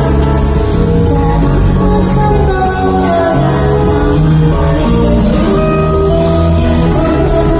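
Live concert music played through an arena sound system: a female singer's vocal over sustained band accompaniment with steady bass.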